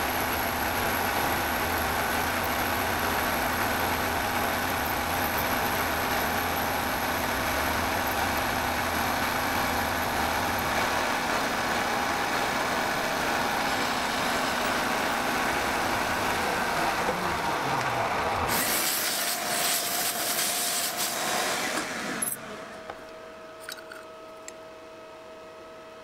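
CNC milling machine spindle running as a small cutter mills a slot in a brass plate: a steady machining noise with a high whine. About 18 seconds in the low rumble dies away and a loud hiss takes over for a few seconds, then it drops to a quieter steady hum.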